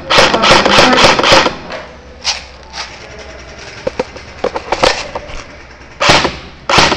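Airsoft guns firing indoors: a quick run of sharp clacks, about six a second for the first second and a half, then scattered single clicks, and more loud shots from about six seconds in.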